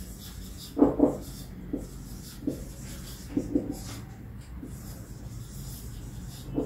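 Marker pen writing on a whiteboard: a series of short strokes and taps of the tip on the board, the strongest about a second in, over a low steady hum.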